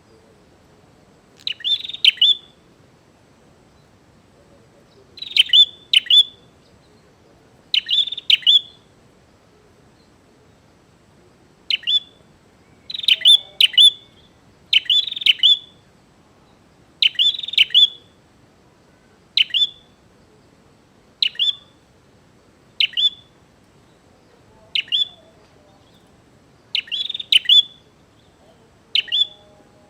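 Prenjak (prinia) calling in short, sharp bursts of high chirps, each a quick run of two or three notes, repeated every second or two. This is a bird in full voice ('gacor'), giving a challenging call to a rival.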